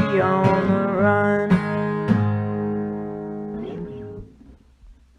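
Acoustic guitar strumming the closing chords of a song, a few strokes, then the last chord ringing out and fading away about four seconds in.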